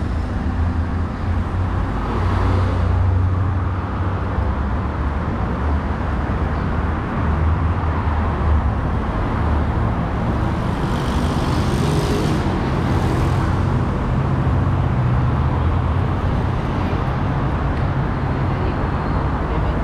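City street traffic: a steady low rumble of car engines and tyres on the avenue, with louder swells as vehicles pass about two seconds in and again around eleven to thirteen seconds in.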